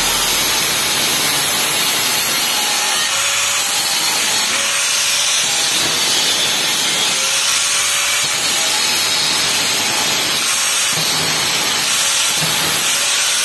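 Angle grinder with a cutting disc grinding through the sheet-steel panel of a gate, a steady high hiss of the disc biting the metal.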